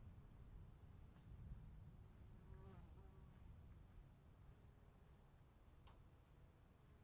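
Faint steady chorus of insects, a high continuous trill with a slight flutter, over a low rumble of storm ambience. A brief chirp comes in the middle, and a single sharp tick comes near the end.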